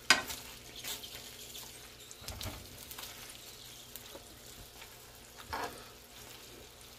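Spicy Italian sausages sizzling softly in olive oil in a nonstick frying pan as they are turned over. A few short taps and scrapes of a metal fork against the pan come through the sizzle.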